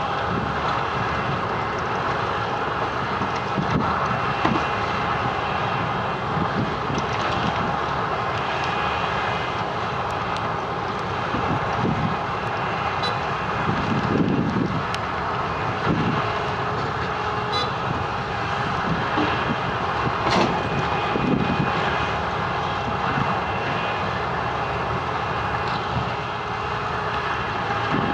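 Wirtgen W210i cold milling machine at work: a steady, heavy machine drone with irregular knocks and clatter.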